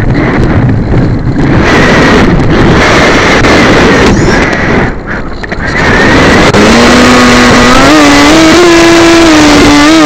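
Strong wind and airflow rushing over the onboard keychain camera's microphone on an RC sailplane, loud and unsteady. About two-thirds of the way through, a steady buzzing whine comes in and steps up in pitch.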